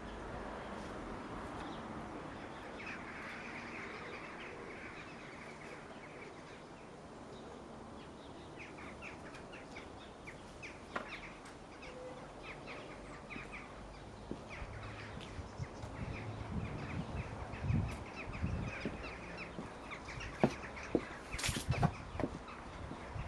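Outdoor garden ambience with small birds chirping on and off. In the last several seconds, irregular low thumps come in, from footsteps and handling of the camera as it is carried across the garden.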